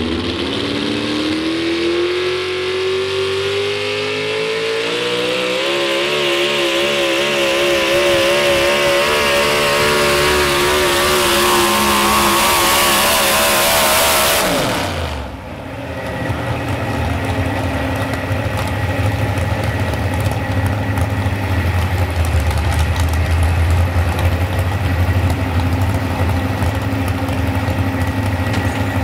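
Modified 4x4 pulling truck's engine at full throttle down the track, its pitch climbing and wavering for about fourteen seconds. It then cuts off suddenly with a quick falling pitch as the run ends. A lower, steady engine rumble follows.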